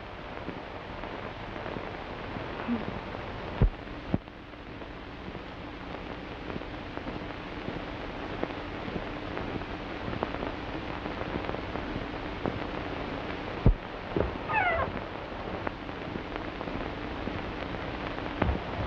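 Steady hiss of an early sound-film soundtrack, with sharp pops about four seconds in and again near fourteen seconds. Just after the second pop comes a brief high call that falls in pitch.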